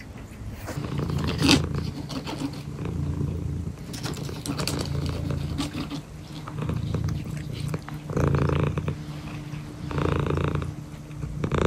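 Ginger domestic cat purring close up, a steady low hum that swells and fades with each breath, every second or two. A short knock about a second and a half in.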